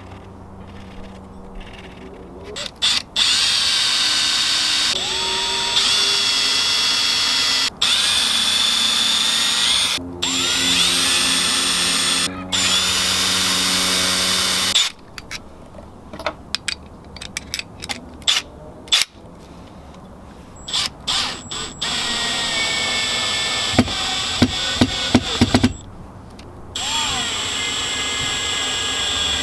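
Power drill running in several long bursts, the whine rising in pitch as each starts, with short clicks and knocks in the gaps between runs, as the hinged side piece of a wooden drawer system is screwed in place.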